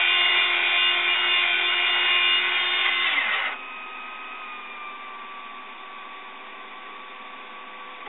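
Small DC toy-car motor of a 3D printer's broom arm running its traveling-nut drive with a steady whine. It cuts off abruptly about three and a half seconds in as the arm's cycle finishes at the limit switch, leaving a much quieter steady hum.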